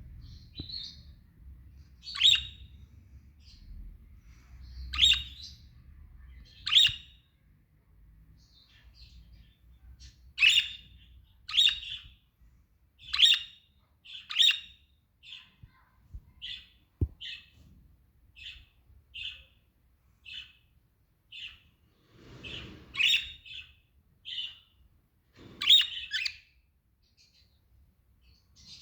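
Pet budgerigars calling: a string of short, sharp chirps and squawks, one every second or two at irregular intervals, some much louder than others.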